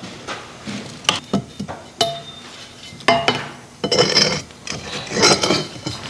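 Wrenches and other hand tools clinking, knocking and scraping on the rusty bolts and pipe of a tractor's exhaust, with a few sharp metallic clinks that ring briefly and two longer scrapes in the second half.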